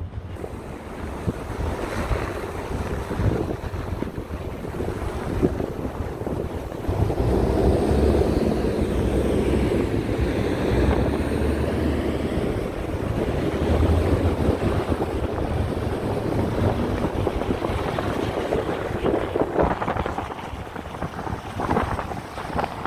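Car driving on a snow-covered road: a steady rumble of tyres and engine mixed with wind noise, growing louder about seven seconds in.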